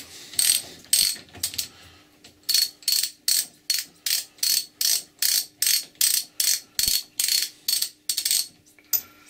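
Hand socket ratchet clicking in quick back-and-forth strokes, about two or three a second, as it runs a locking nut off the compound slide screw of a Colchester lathe. The strokes stop shortly before the end.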